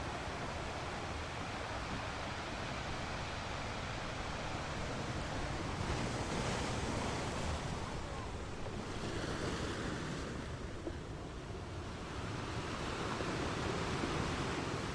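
Wind rushing over the microphone, a steady noise that swells twice.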